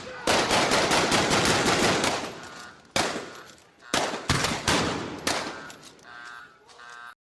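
Gunfire sound effects: a burst of rapid automatic fire lasting about two seconds, then several single shots roughly a second apart, each with a ringing tail. The sound cuts off abruptly near the end.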